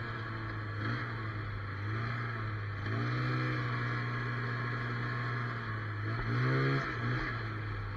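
Snowmobile engine running at low speed, its pitch rising and falling a couple of times as the throttle is eased on and off.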